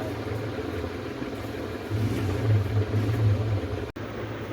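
Steady low mechanical hum, louder for about a second and a half in the middle, with a brief gap near the end.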